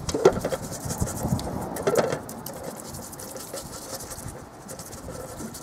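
A small paintbrush being scrubbed and swirled in white spirit in a metal bucket to clean off Flashband primer, its bristles scratching against the bottom and sides of the bucket. The scrubbing is louder in the first two seconds and softer after.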